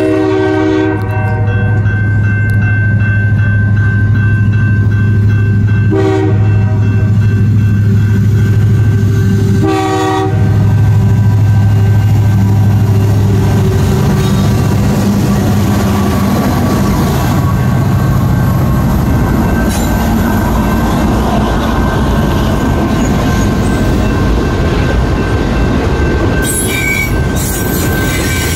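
CN diesel freight locomotives approaching and passing a level crossing. The engines drone steadily while the horn sounds three times: at the start, a short blast about 6 s in, and another about 10 s in. A crossing bell rings steadily. From about 14 s the locomotives are past and freight cars roll by with steady wheel-on-rail noise.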